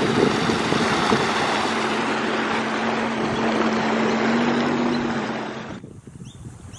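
Jet ski running across a river: a steady engine hum under rushing water from the wake and wind on the microphone. It cuts off abruptly about six seconds in, leaving a quieter riverbank with a few faint bird chirps.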